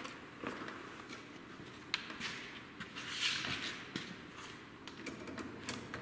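Scattered light clicks and knocks of handling as leather welding gloves are worked on and a cordless drill with a hone extension rod is taken up, with a brief hissing rustle about three seconds in; the drill is not running.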